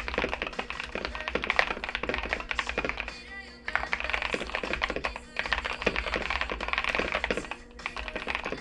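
Fast typing on a KBD67 Lite mechanical keyboard with lubed TTC Carrot linear switches, with a dense run of keystroke clacks that pauses briefly about three seconds in and again near the end. A song plays underneath.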